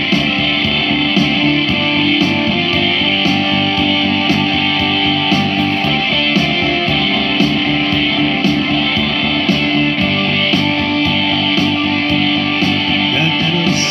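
Electric guitar played through outdoor PA loudspeakers over a steady beat: the instrumental introduction to a song, before the singing starts.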